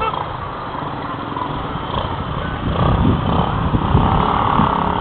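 Small motorcycle engines of passing road traffic, growing louder about three seconds in as motorcycle tricycles approach, heard through a CCTV camera's microphone.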